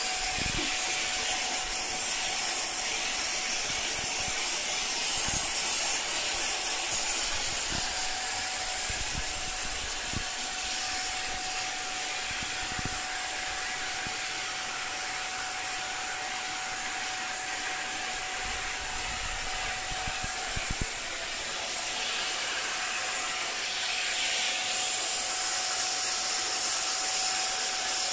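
Vacuum cleaner running steadily with its brush nozzle being drawn over a cat's fur: a constant rushing hiss with a steady whine, a little louder around 6 s in and again near the end, with a few faint low bumps.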